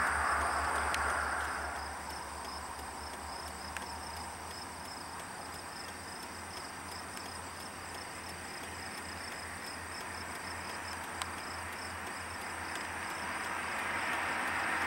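Loaded freight train rolling past, steel wheels grinding on the rails as heavy scrap gondolas go by, with a low steady rumble underneath. It is louder in the first couple of seconds, eases off, then builds again near the end.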